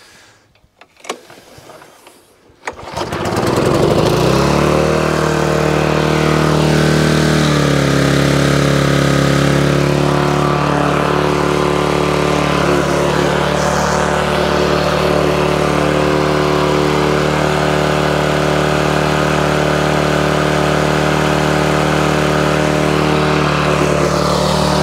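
Hayter 41 lawnmower's petrol engine starting about three seconds in, then running steadily at high speed, its pitch dropping slightly a few seconds later. It is running a bit quick: the governor needs more adjustment.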